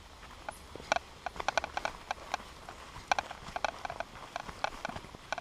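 Footsteps on a rocky dirt path: a string of light, irregular clicks and scuffs.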